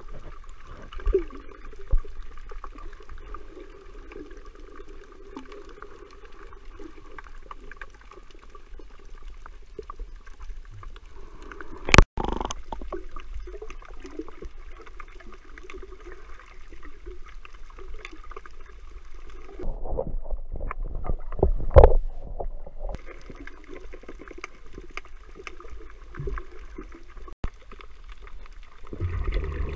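Muffled underwater sound of water moving around the microphone, a steady wash with scattered faint clicks. There is one sharp knock about twelve seconds in, and a burst of louder thumps and sloshing a few seconds later.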